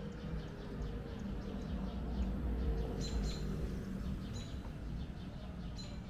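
Small birds chirping in short, repeated calls over a low traffic rumble, which swells as a car drives past about two to three seconds in.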